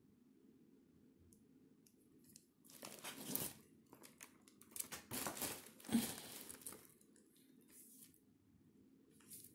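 Crinkling and rustling as something is handled, in two spells: one about three seconds in, and a longer one from about five to nearly seven seconds in.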